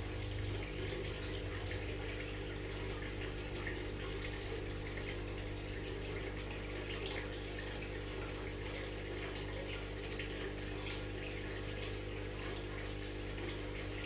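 Aquarium water splashing and bubbling with a steady hiss and many small crackles, over the constant hum of the tank's filter pump.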